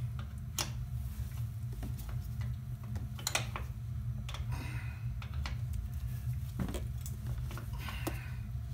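A few scattered sharp clicks and taps of hand tools on brake hardware, over a steady low rumble.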